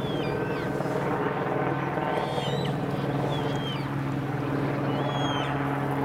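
A steady engine drone from an unseen motor, holding one pitch. Small birds chirp briefly over it several times.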